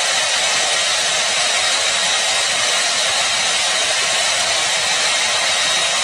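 Hair dryer running steadily: an even rush of blown air with a faint high whine.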